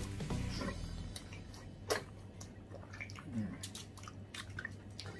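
Close-up chewing and biting of food, with scattered wet mouth clicks and smacks; one sharper click about two seconds in.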